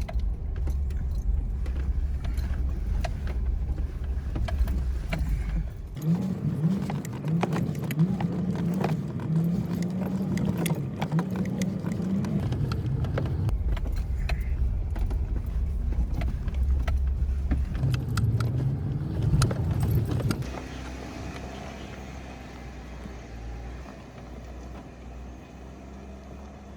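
4x4 Jeep crawling over rocks at low speed: the engine runs under load while the body and suspension clunk and rattle, with keys jangling. About two-thirds of the way through it all drops to a quieter, steadier engine sound.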